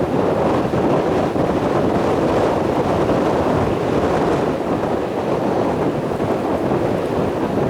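Strong gusty wind buffeting the microphone: a steady, rumbling rush with no distinct engine tone.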